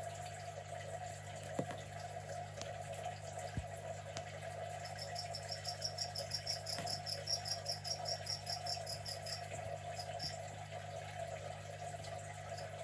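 A fast run of high, evenly spaced chirps like an insect's call, about five a second, starts about five seconds in and stops after about four and a half seconds. Underneath is a steady hum with a running-water sound like a small pump.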